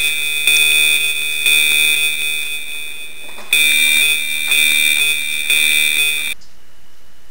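Red Alert deterrent alarm from a remote security system's site loudspeaker: a loud, high-pitched electronic alarm tone pulsing about once a second, cutting off suddenly about six seconds in.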